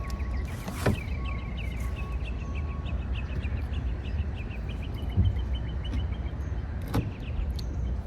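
Steady low rumble with a bird's rapid, repeated chirping over the first six seconds or so, and a few short sharp clicks.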